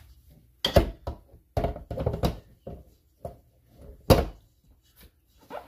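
Stainless steel stand-mixer bowl, loaded with flour, being handled and set onto the mixer base: several knocks and thuds, the loudest about four seconds in.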